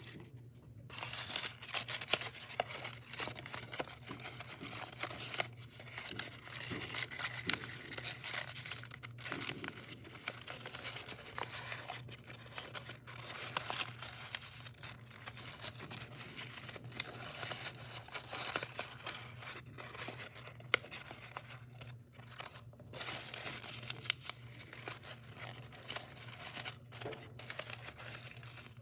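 Folded origami paper being handled and fitted together, crinkling and rustling with many small creasing clicks. There are louder stretches of high, scratchy paper sliding about halfway through and again near the end.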